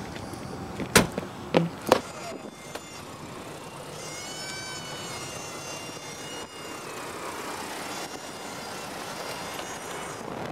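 Three sharp knocks in the first two seconds, then the steady drone of a Cessna 182 heard from inside its cabin, with a high whine that wavers in pitch from about four seconds in.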